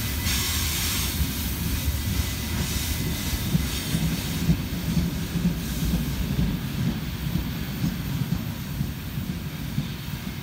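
Loaded coal wagons of a freight train rolling by: a steady low rumble with wheels clicking over the rail joints, easing off slightly near the end.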